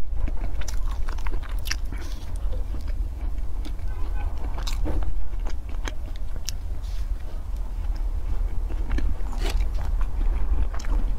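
Close-up biting and chewing of a crisp-shelled ice cream bar: irregular crunchy crackles and chewing, over a steady low rumble.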